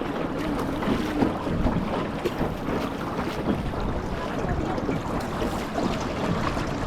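Wind buffeting the microphone over water moving around a rowed sampan boat, with a steady low rumble and many small splashes and knocks.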